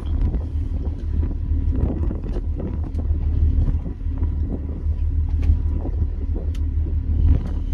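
A boat's engine running steadily as a low rumble, with wind buffeting the microphone and a few light clicks and knocks.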